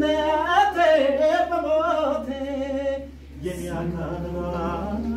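A man singing unaccompanied, holding long wavering notes; the voice breaks off about three seconds in and picks up again half a second later.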